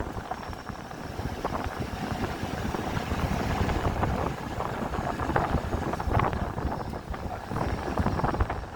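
Low, rumbling vehicle noise with wind on the microphone.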